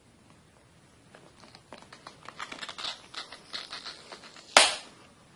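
Phone charger packaging being handled and opened: a run of small clicks and rustles, then one sharp snap about four and a half seconds in.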